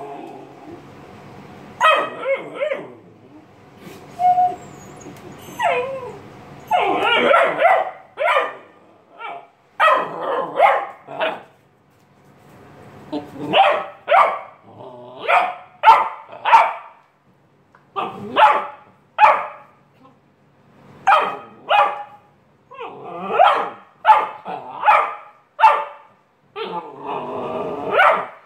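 Great Dane puppy barking repeatedly at a hand brush on the floor, in short loud barks that come in clusters of two or three with brief pauses between them.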